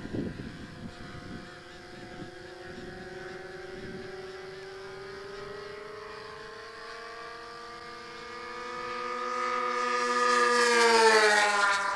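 The two OS 46AX two-stroke glow engines of a twin-engine RC racing plane run at high revs in a fly-by. The engine note rises slowly in pitch and grows louder as the plane approaches. It is loudest near the end, then its pitch drops sharply as the plane passes.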